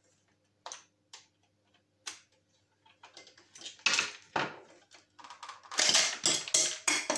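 Plastic housing of a hair dryer being handled and pried apart during disassembly: scattered sharp clicks and light scrapes, growing busier and louder near the end.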